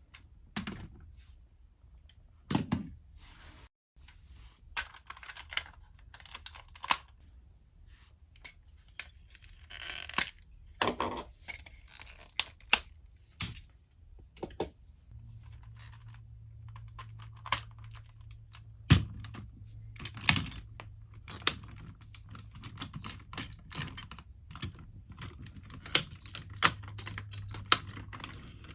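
Plastic parts of DX robot toys being handled and snapped together, giving irregular sharp clicks and knocks with a few louder snaps.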